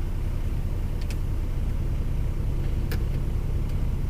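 Lorry diesel engine idling, a steady low rumble heard from inside the cab, with two light clicks about one and three seconds in.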